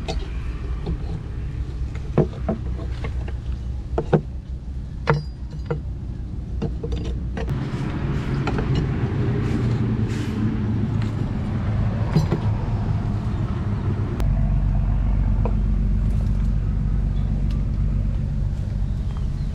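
A motor or engine running with a steady low hum that shifts in pitch twice and grows somewhat louder in the second half. Sharp clicks are scattered through the first half.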